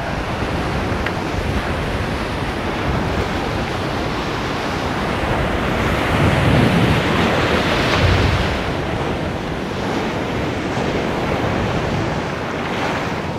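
Surf breaking on a rocky reef shore, a steady rushing wash of waves with wind buffeting the microphone. A wave swells louder about six to eight seconds in.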